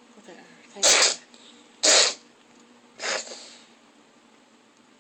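A cat sneezing three times in quick succession, about a second apart, the third softer. It is a sneezing fit that the owner takes for some sort of allergy attack.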